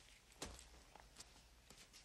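Near silence: quiet room tone with one soft knock about half a second in and a few faint clicks.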